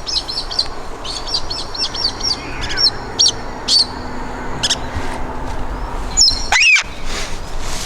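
Birds calling: quick runs of short, high chirps, with one louder call sliding down in pitch about six and a half seconds in.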